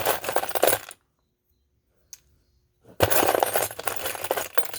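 Loose metal sewing machine presser feet clinking and clattering together as they are rummaged through and sorted, in two spells of rattling: about a second at the start, and a longer one beginning about three seconds in.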